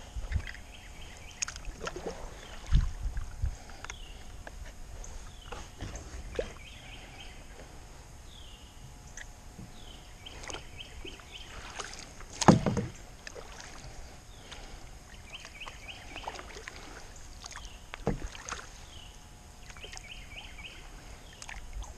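Kayak being paddled: the paddle splashes and drips, with a few sharp knocks of the paddle against the plastic hull, the loudest a little past the middle.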